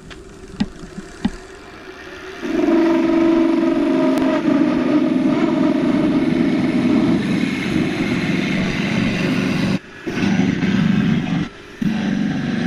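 Half-inch spindle gouge cutting a resin-and-wood bottle stopper blank spinning on a wood lathe: after two sharp clicks, a loud, steady cutting noise with a hum in it sets in about two seconds in as resin ribbons peel off. The cut breaks off briefly twice near the end.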